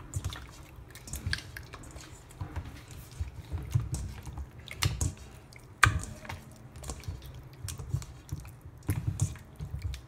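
Hands squishing raw chicken cutlets through a mayonnaise marinade in a stainless steel bowl: irregular wet squelches with short clicks and knocks, the sharpest about six seconds in.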